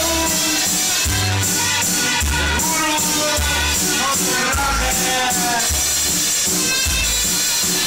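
Loud Latin music, with a melody line over a deep bass note that lands about once a second, and light shaker-like percussion.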